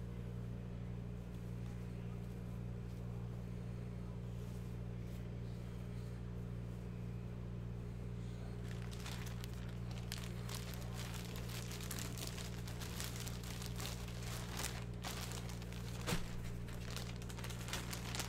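Clear plastic bag crinkling as it is handled, starting about halfway through and going on in quick irregular crackles, over a steady low hum.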